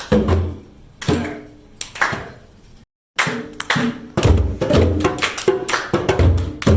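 Hand drums being struck in a drum circle. First come a few single strokes about a second apart, each ringing briefly. After a sudden short gap, several drums play a fast rhythm of sharp slaps mixed with deep bass strokes.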